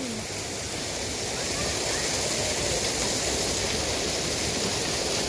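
Steady rushing of water, an even hiss that stays at one level, slightly louder after the first second.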